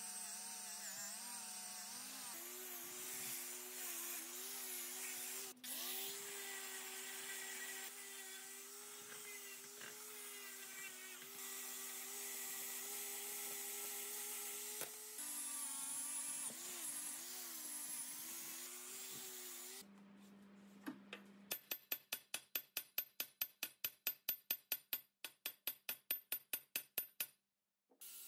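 Angle grinder with a wire wheel running, brushing rust and paint off steel, its pitch wavering as the wire bears on the metal. Later a fast, even series of short sharp strokes, about three a second, for several seconds.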